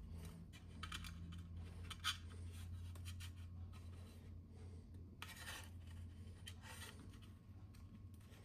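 Faint scratching and light clicks of hand work picking leftover plastic out of the smokestack hole in a toy locomotive's shell, with a small click about two seconds in and a short scratchy rustle a little past the middle, over a steady low hum.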